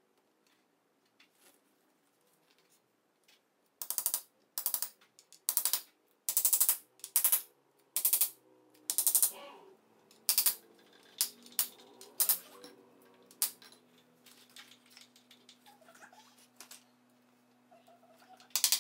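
A run of sharp, loud knocks on flat-pack bookcase parts during hand assembly, about one a second starting about four seconds in, then fainter clicks and taps.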